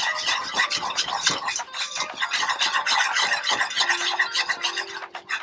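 Wire whisk beating fast and continuously in a metal saucepan, working flour into hot gravy so it does not clump.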